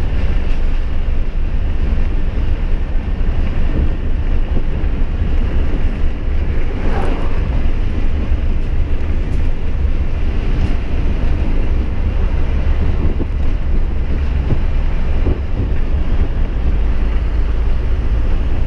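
A truck running steadily on the road, heard from inside the cab: a constant low engine and road rumble.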